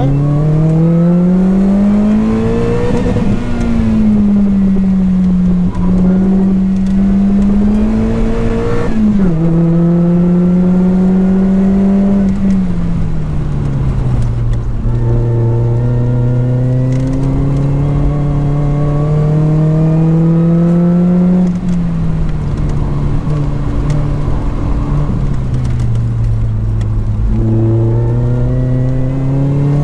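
Lotus Elise 220 Sport's supercharged four-cylinder engine, with a 2bular H1 exhaust silencer, pulling hard on track. The pitch climbs through the revs and drops sharply at upshifts about 3 and 9 seconds in. It falls away on lifts and downshifts around 12 and 21 seconds, then climbs again near the end.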